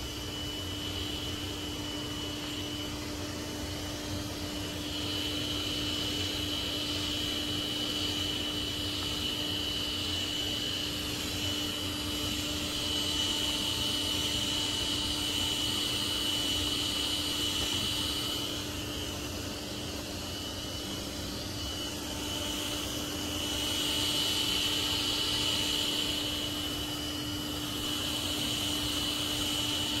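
Tikom L9000 robot vacuum running on carpet at high suction, its carpet boost engaged: a steady fan whine with a high tone over a lower hum, growing somewhat louder a few times.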